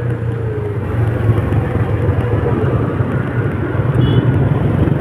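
A road vehicle driving through heavy rain: a steady low engine and road rumble under a constant hiss of rain and spray. A brief high tone sounds about four seconds in.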